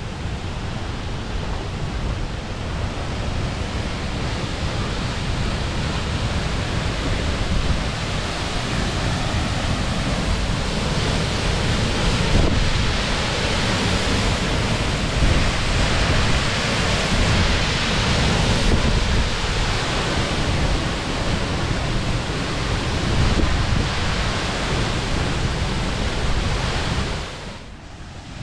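The Stuibenfall waterfall rushing close by: a loud, dense, steady noise that fades sharply about a second before the end.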